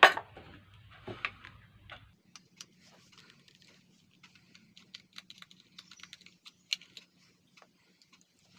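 Irregular light clicks and taps of an electric kettle's plastic and metal parts being handled, with one sharp, loud click right at the start.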